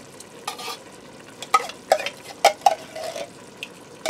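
A spoon scraping and knocking inside a metal soup can as thick condensed cream of chicken soup is scooped out: several sharp scrapes and clicks, most of them between about half a second and three seconds in. Beneath them, a steady sizzle from chicken, onions and peppers frying in the hot pot.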